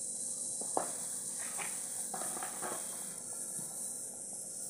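Lentils boiling in water in an iron kadhai over a wood fire: a steady bubbling hiss, with a few short, faint sounds scattered through it, the sharpest a click about a second in.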